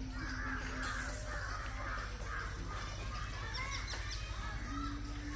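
Birds calling: several harsh calls in the first two seconds, then scattered softer calls and a few high, thin chirps.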